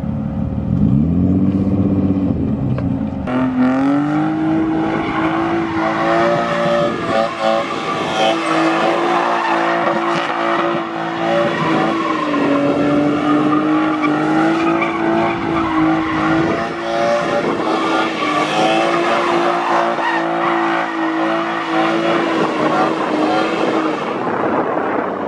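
BMW E30 sedan drifting: the engine climbs in revs over the first few seconds, then is held high and steady through a long continuous slide, dipping slightly now and then, with tyre squeal throughout.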